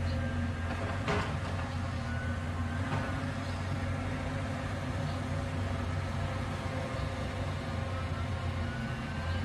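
Caterpillar hydraulic excavator's diesel engine running steadily while the boom and bucket dig, with one sharp knock about a second in.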